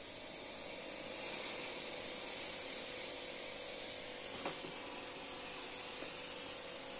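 Fog machine spraying with a steady hiss that swells about a second in and holds, a faint hum underneath and a single click about four and a half seconds in.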